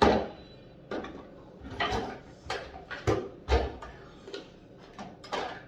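A string of about ten knocks and clatters, like household things being handled and set down while cleaning. The loudest comes at the very start, and there is another strong one about three and a half seconds in.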